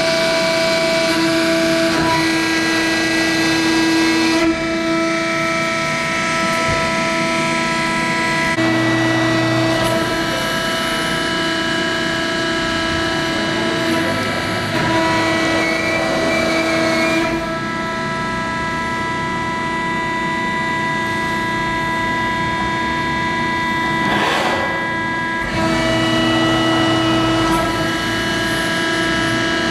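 Cincinnati CNC hydraulic press brake running: the hydraulic pump whines steadily with several sustained tones, and the pitch and tone step to a new setting every few seconds as the ram cycles. A brief rush of noise comes late on.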